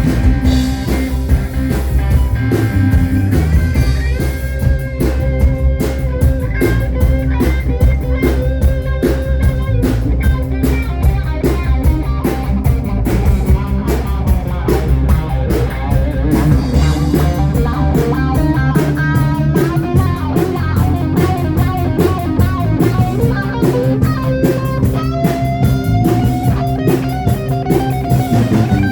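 Live rock band playing an instrumental passage: guitar lines over bass and drum kit, with the guitar bending notes upward near the end.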